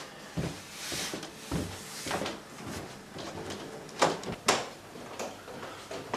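Footsteps going slowly down an indoor staircase, a soft thump about every half second or so, then two sharp clicks a moment apart about four seconds in.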